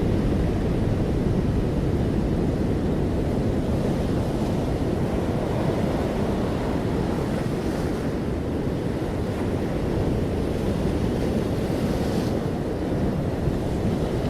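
Steady noise of breaking ocean surf, with wind rumbling on the microphone.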